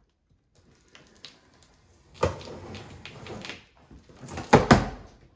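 Knocks and clunks of smoker parts and packaging being handled: a sharp knock about two seconds in, rustling, then two louder clunks close together near the end.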